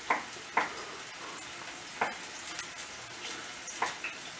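Kitchen knife dicing tomatoes on a wooden cutting board: a handful of sharp, irregularly spaced chops. Under them, a steady sizzle of chopped green peppers frying in oil.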